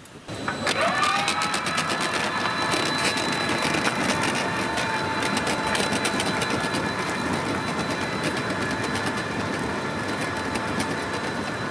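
A Honda hybrid snowblower's electric crawler-drive motor, running on battery power with the engine off. Its whine winds up about half a second in and then holds steady. Throughout there is a fast clicking clatter from the rubber crawler tracks rolling over asphalt.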